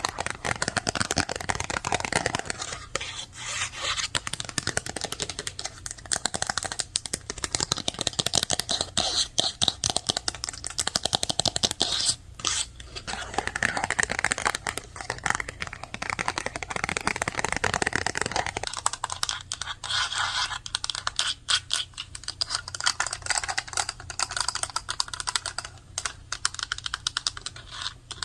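Fast typing on a computer keyboard: a dense, unbroken run of rapid keystroke clicks, with a couple of brief pauses.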